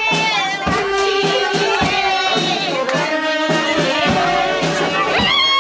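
Music: a wavering melody with vibrato over hand-drum strokes.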